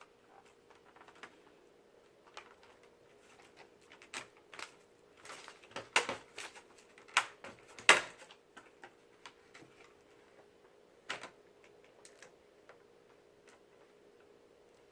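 Scattered plastic clicks, taps and knocks as a Toshiba Satellite laptop's case is handled and its lid closed and pressed shut after reassembly. The clicks grow busier and louder in the middle, with two sharper snaps, then thin out to a few taps.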